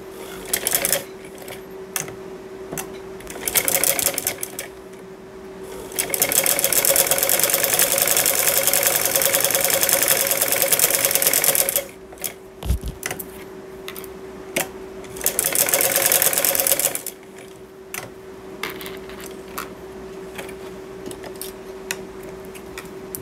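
Domestic straight-stitch sewing machine stitching a seam, running in short bursts and then one long run of about six seconds in the middle, with a shorter run later and small clicks of the machine and fabric being handled in between.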